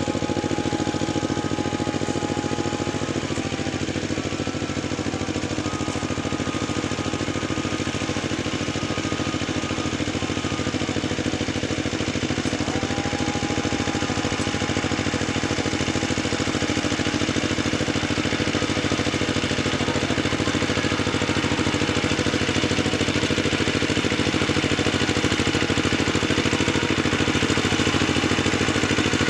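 An engine running steadily at an even pitch, with no change in speed.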